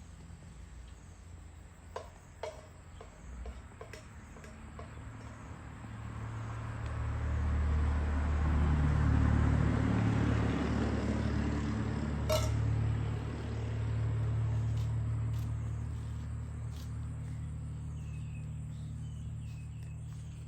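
A low engine rumble swells up over several seconds, peaks, then slowly fades, like a motor vehicle passing. A few sharp clicks sound in the first few seconds and once in the middle.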